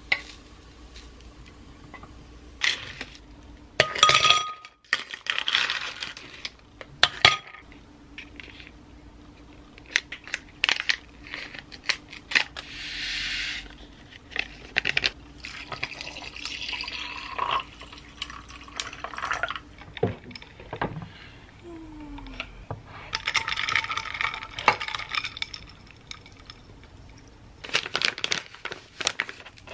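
Kitchen tableware sounds: chopsticks and a frying pan clinking and tapping, ice knocking in a glass, and liquid poured into a glass of ice in a few hissing stretches.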